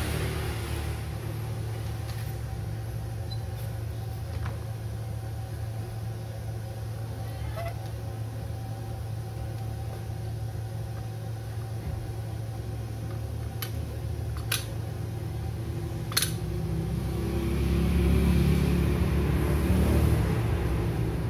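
Steady low hum, with a few sharp clicks and knocks as a laptop's metal heatsink-and-fan assembly is handled and set onto the motherboard. The sound grows louder and fuller near the end.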